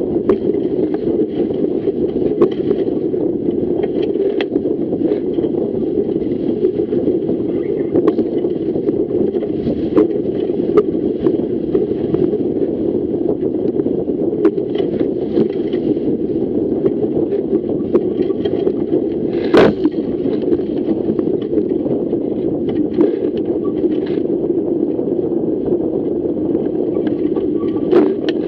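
Steady rush of wind and water on a Fireball racing dinghy sailing fast through chop, with scattered sharp clicks. The loudest click comes about two-thirds of the way through.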